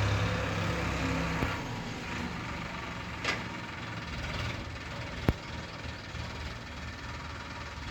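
A vehicle engine running with a low, steady hum that drops away about a second and a half in, leaving a fainter rumble. There is a short swish a little later and a single sharp click about five seconds in.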